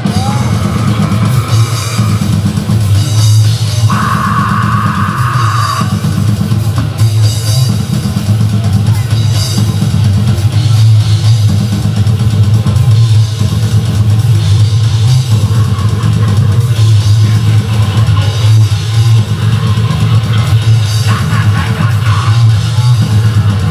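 Death metal band playing live at full volume: heavily distorted electric guitars over a pounding drum kit with bass drum, a dense, continuous wall of sound.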